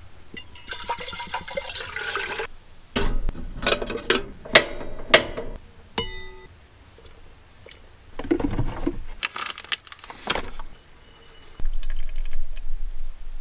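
Water poured from a plastic bottle into a small pot, then clicks, knocks and a short ringing clink as containers and lids are handled. Near the end, hot water is poured over coffee grounds in a paper pour-over filter.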